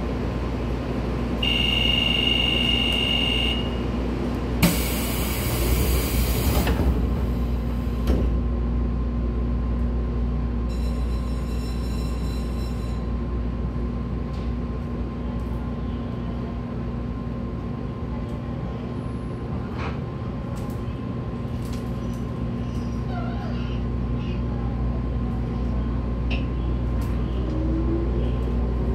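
Inside a JR Kyushu 811-series electric train's motor car at a station: a door chime sounds, then a burst of air hiss as the doors close, and a second chime follows. Over a steady low hum, a faint rising whine from the traction motors begins near the end as the train pulls away.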